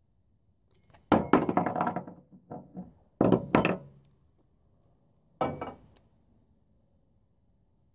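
Four groups of hard knocks and thuds, each rattling briefly, with quiet between them.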